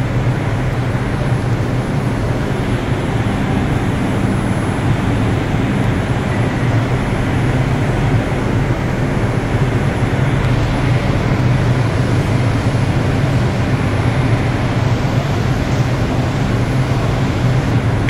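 An R142 subway car running, heard from inside the car: a steady, even rumble with a strong low hum.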